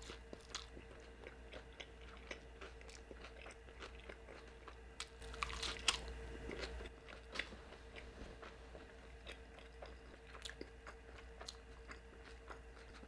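A person chewing and biting a fish taco close to the microphone: soft, scattered mouth clicks and crunches, with a louder stretch of biting about five to seven seconds in. A faint steady hum sits underneath.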